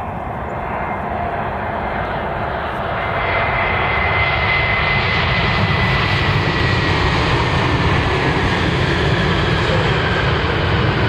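Airbus A321neo jet airliner on approach, its engines growing louder over the first few seconds and then running steadily loud, with a high whine that slowly drops in pitch as it passes.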